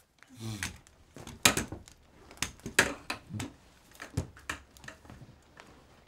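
Irregular sharp knocks and clatter from someone moving about a small room, with a brief low grunt about half a second in.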